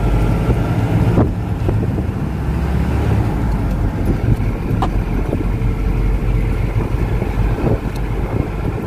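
Cabin noise of a moving bus: the engine and tyres give a steady, heavy low rumble, with a few brief rattles and clicks from the body.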